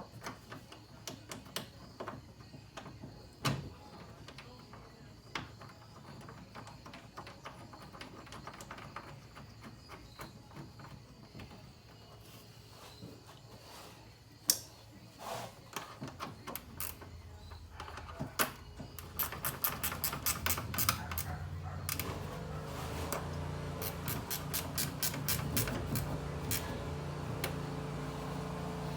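Scattered clicks and knocks of a cooling-fan shroud and bolts being handled against the radiator. From about two-thirds of the way in come runs of rapid, even clicks from a ratchet wrench tightening the fan's top mounting bolts, over a low steady hum.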